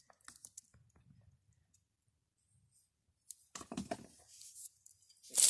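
Mostly quiet, then short crunching and scraping of loose rocks being handled about three and a half seconds in, with a louder rustle right at the end.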